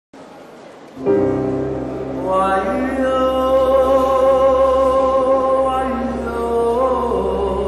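Music: the intro of a song, coming in loudly about a second in, with long sustained notes.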